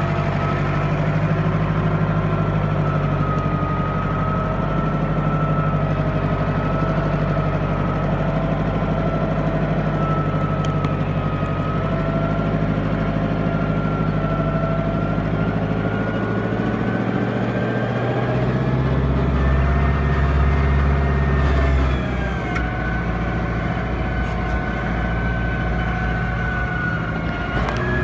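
Lamborghini farm tractor's diesel engine running steadily under load as it drives along a muddy forest track pulling a trailer of logs. A deep low rumble swells up about two-thirds of the way through, then the engine pitch drops slightly.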